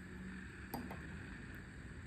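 Quiet, steady low hum of background noise, with two faint small clicks a little under a second in.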